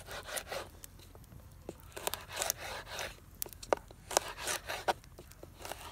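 Knife slicing young cactus pads into fry-shaped strips: a run of irregular scraping cuts.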